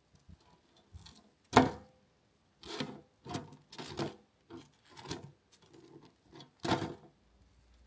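Cooked fish steaks being turned over by hand on a stainless steel wire rack in an air fryer drawer: a series of soft knocks and scrapes, the loudest about a second and a half in and another near the end.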